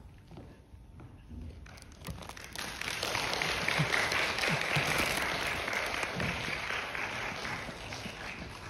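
Audience applauding, starting about two seconds in, swelling quickly and then slowly fading.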